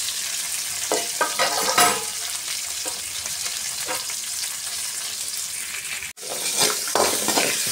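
Chopped onion sizzling in hot oil over a tempering of mustard seeds, spices and chillies in a kadai, a steady hiss with a few short crackles. The sound drops out for an instant a little after six seconds in.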